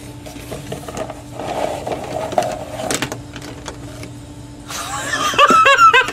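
Cardboard box being handled and clear plastic pen oiler tubes tipped out, sliding and clicking onto a table. A short, louder vocal sound comes near the end.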